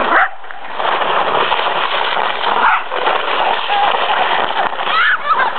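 Plastic saucer sled scraping and sliding across ice in a steady, loud hiss. A few short high-pitched vocal squeals come about five seconds in.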